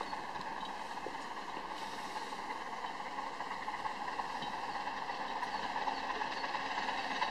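Battle of Britain class steam locomotive approaching from a distance: a steady rushing train noise that grows slightly louder toward the end.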